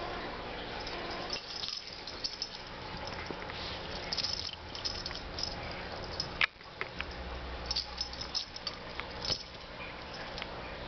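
A kitten scrabbling and batting close to the microphone: rustling, scratching and scattered light clicks, with one sharp knock about six and a half seconds in.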